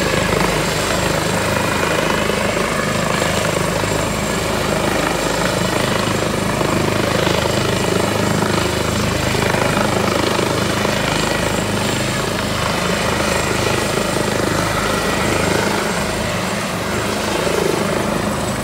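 Helicopter running on a superyacht's helideck, its engines and rotor giving a steady low hum with a thin, high, steady whine above it.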